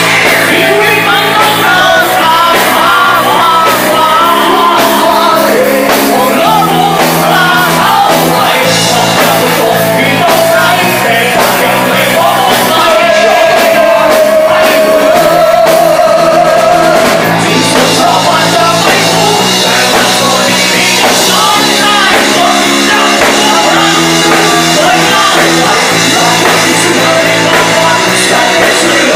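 Live rock band playing loud: electric guitar and drums on chords that change every second or two, with a voice singing over them and holding one long note near the middle.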